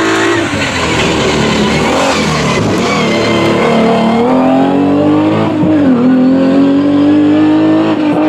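Alfa Romeo hill-climb racing car's engine running hard under load, its pitch dipping and climbing back several times.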